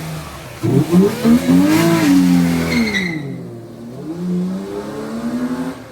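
Car engine revving: its pitch climbs for about a second, sinks back slowly, then climbs again near the end.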